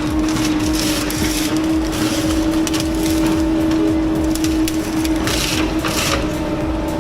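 Heavy machine's engine running steadily, with a constant hum and irregular hissing and crackling bursts over it.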